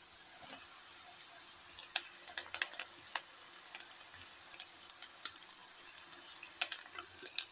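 Oil sizzling in a pan of frying onions and peanuts, a steady faint hiss, with scattered light crackles and rustles as a heap of fresh amaranth leaves is dropped in.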